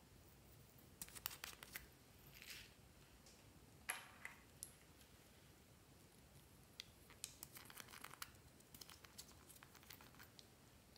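Faint clicking and rattling of small screw-capped plastic tubes of sequin glitter being handled and their caps twisted off, in several short clusters of rapid clicks with one sharper click about four seconds in.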